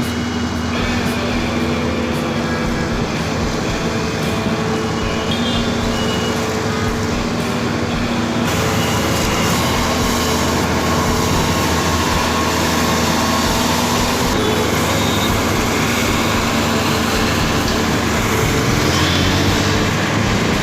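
Heavy diesel road-construction machinery running steadily, an engine drone under a dense mechanical noise. The sound shifts and grows brighter about eight seconds in.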